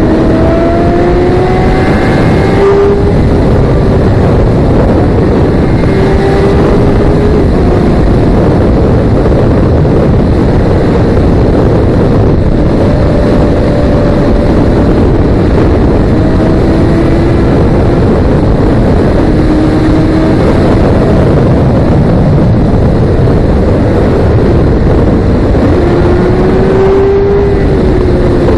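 Sport motorcycle riding at road speed, its engine pitch rising several times as it pulls through the gears, under a heavy, steady rush of wind on the microphone.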